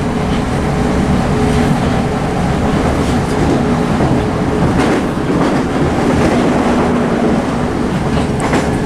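Interior running noise of a Southeastern Class 465 Networker electric multiple unit at speed: a steady rumble of wheels on rail, with a few clicks from the wheels passing over the track about halfway through and near the end.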